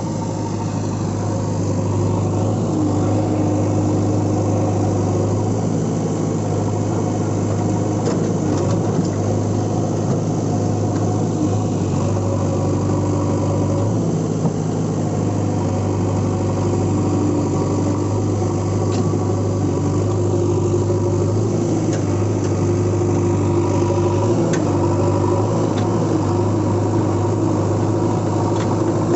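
A vehicle engine running steadily at an even speed, a low hum with little change in pitch.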